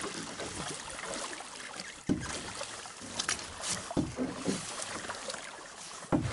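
Canoe paddling: a wooden paddle pulled through lake water in steady strokes, three of them about two seconds apart, over a soft wash of moving water.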